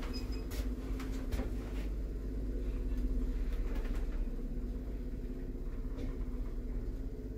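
1984 ZREMB passenger elevator heard from inside the car: the doors shut with a few knocks in the first second and a half, then the car runs with a steady motor hum and low rumble.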